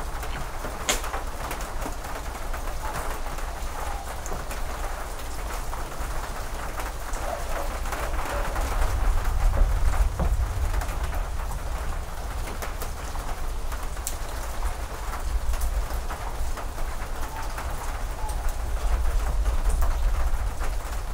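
Steady rain falling, with many scattered drops ticking. Under it a low rumble swells about eight seconds in and again near the end.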